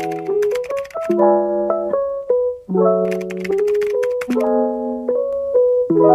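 Background music: a piano or keyboard playing short, repeating phrases, with a light percussive tick.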